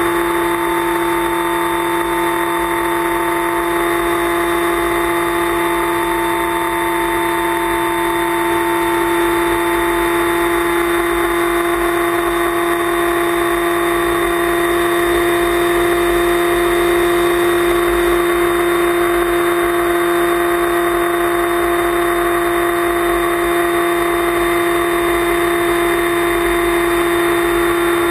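FPV flying wing's electric motor and propeller running at steady cruise throttle, heard from the onboard camera: a constant whine of several steady tones over a rush of airflow noise.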